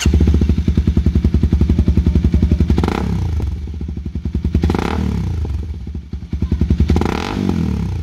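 Honda CBR250R's single-cylinder engine, breathing through a Yoshimura R77 carbon full-system exhaust, catches and idles with a fast, even pulse. It is then blipped three short times, about 3, 5 and 7 seconds in, and each rev falls back to idle.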